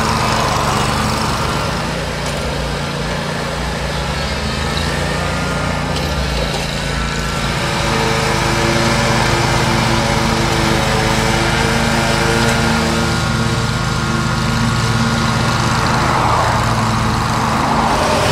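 Engine of a zero-turn ride-on mower running steadily while mowing grass, a continuous drone.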